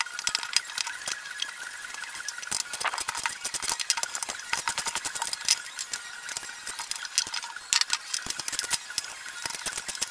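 Steel spanners clicking and clinking on the nuts and bolts as caster wheels are bolted onto a mobile base's steel brackets: many small, irregular metallic clicks.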